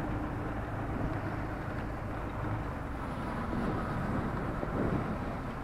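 Fire engine's engine running, a steady low rumble.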